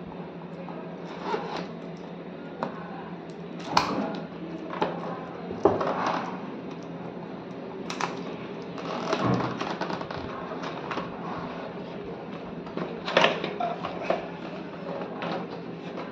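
Cardboard retail box being worked open by hand: irregular scrapes, rustles and sharp knocks of the cardboard flaps, with a steady low hum underneath.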